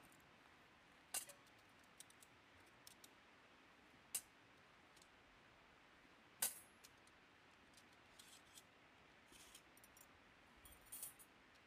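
Sparse light metallic clicks and clinks from a folded Firebox camp stove's metal panels being handled: three sharp clicks about one, four and six and a half seconds in, the last the loudest, then softer clinks with a small cluster near the end, over near silence.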